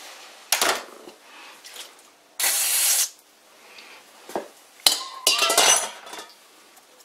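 Metal parts and tools clinking and knocking at a lathe as the stuck arbor and the tool-post drill are handled, with a short burst of hiss midway and a rattling run of clinks near the end.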